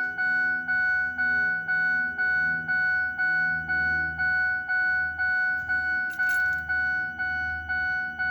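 A vehicle's warning chime dinging over and over, about two strikes a second, while the engine sits resting between cranking attempts.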